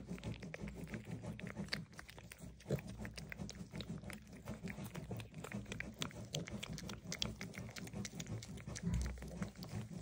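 Mini piglets snuffling and chewing as they nibble marshmallows from a hand: a steady, irregular run of small wet clicks and smacks, with straw rustling.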